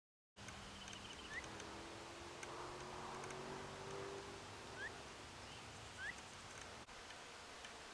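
Faint outdoor ambience with a bird giving three short rising chirps, and a low droning hum that rises slightly in pitch around the middle. The sound cuts in just after a brief dropout at the start.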